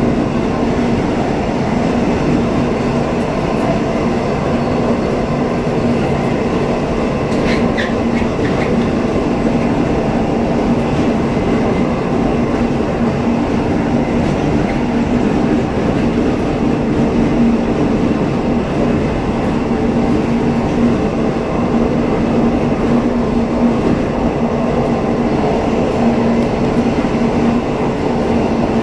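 Electric train running steadily along the rails: a continuous rail rumble with a low steady hum. A few brief high squeaks come about eight seconds in.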